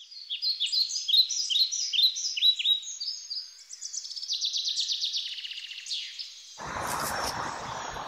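Small songbird singing: a run of quick, high, falling chirps, then a fast high trill. A rushing outdoor noise, like wind, comes in near the end.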